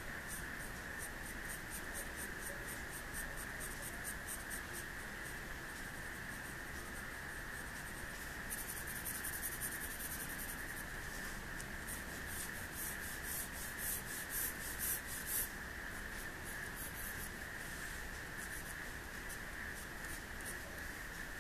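Pencil scratching on drawing paper in short repeated strokes, about four or five a second at first, then in denser, louder runs of shading strokes about nine seconds in and again from about twelve to fifteen seconds.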